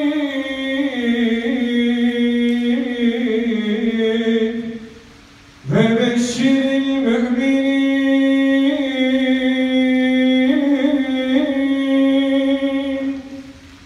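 A man's voice chanting a ceremonial Mehter call in long drawn-out held notes: one long phrase that dips in pitch and stops about five seconds in, then after a short break a second, longer held phrase that ends shortly before the end.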